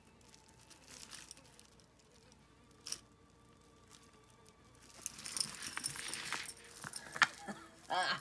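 Costume jewelry clinking and jangling as tangled pieces are pulled from a bag and handled, starting about five seconds in after a few faint clicks.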